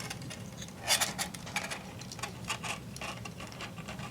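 Irregular light clicks and rustling from handling the small plastic frame of a Blade 120 SR mini helicopter as its tail motor wire is threaded through; the sharpest click comes about a second in.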